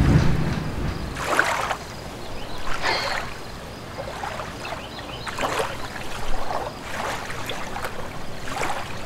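Water lapping and splashing softly around people floating on their backs in a river, with a splashy surge every second or two over a steady watery hiss. A low rumble fades out in the first second.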